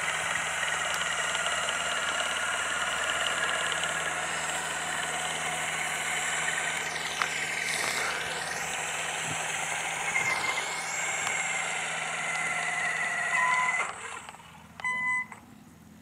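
Steady engine noise with a high whine, cut off abruptly near the end, followed by a couple of short high beeps.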